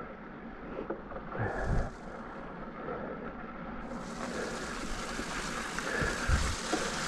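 A Specialized Fuse hardtail mountain bike ridden along a wet trail: a steady rushing hiss of riding noise and wind on the microphone, with a few low bumps. The hiss gets louder and brighter about four seconds in.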